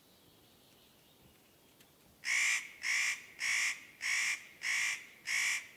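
Spotted nutcracker giving a series of harsh screeching calls: six in a row about half a second apart, starting about two seconds in.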